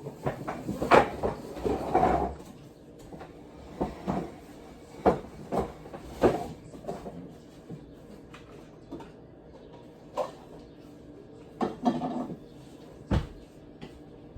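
Scattered knocks and clatter of cupboard doors being opened and shut and things being handled, the loudest bangs in the first couple of seconds.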